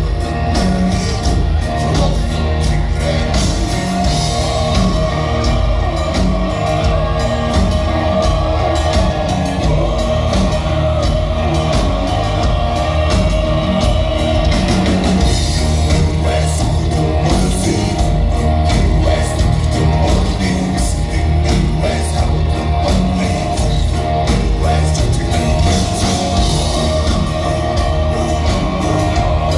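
Mongolian folk-metal band playing live: drums and amplified traditional Mongolian string instruments under men's low throat-sung vocals.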